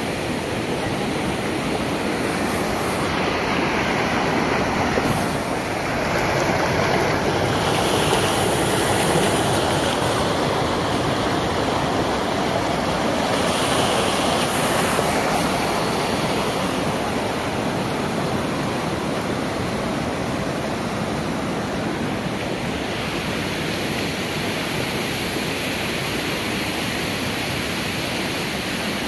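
Muddy floodwater rushing in a steady, loud torrent, a continuous churning noise that swells a little for a few seconds at a time.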